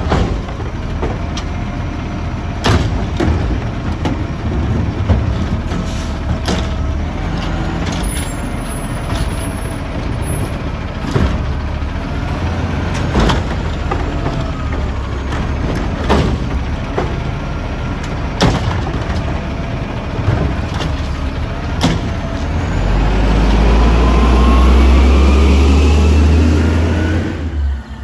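Autocar automated side-loader garbage truck working a cart: the engine runs steadily under the hydraulic arm's wavering whine, with about eight sharp bangs spread out as the cart is shaken and emptied into the hopper. Near the end the engine revs up louder for several seconds with a rising whine.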